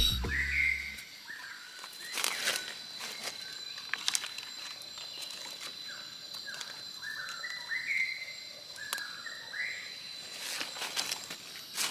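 Forest ambience: a steady high insect drone, a bird calling in short runs of quick notes now and then, and brief rustles of feet and hands in dry leaf litter.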